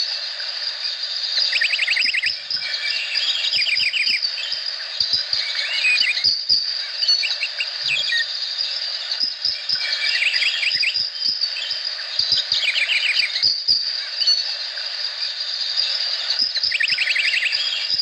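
Tropical rainforest ambience: a steady high-pitched insect drone with a rapid trilling call that comes back every few seconds, and scattered faint ticks.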